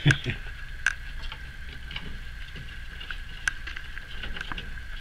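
A few scattered sharp clicks and light taps, the clearest just after the start, just under a second in and about three and a half seconds in, over a faint steady high-pitched hum.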